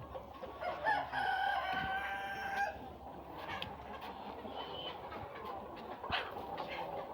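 A rooster crowing once, a single held call of about two seconds starting about a second in, followed by a sharp knock near the end.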